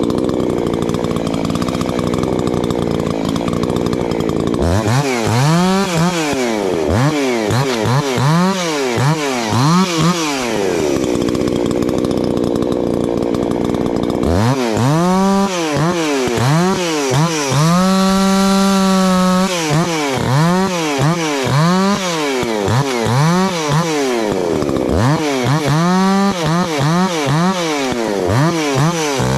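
Chainsaw limbing a downed lodgepole pine. The engine runs steadily under load for a few seconds at a time, and in between revs up and drops back about once a second. It holds full throttle briefly in the middle.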